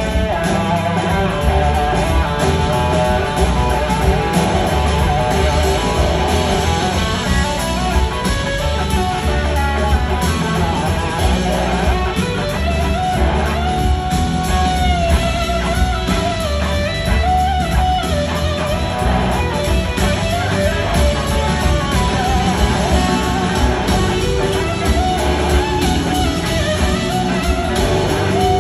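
Electric guitar solo on a Gibson SG through an amplifier, over a rock band's bass and drums. Its notes glide in pitch, most clearly around the middle.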